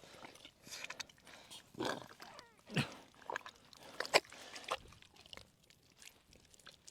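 Hands groping in wet pond mud, giving scattered faint squelches and rustles. A short falling grunt-like vocal sound comes about three seconds in.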